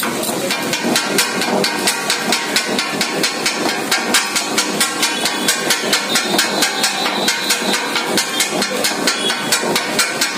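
Two flat steel kothu-parotta blades beating rhythmically on a flat iron griddle as the parotta is chopped up: a fast clatter of metal-on-metal clangs, about five a second, starting about half a second in.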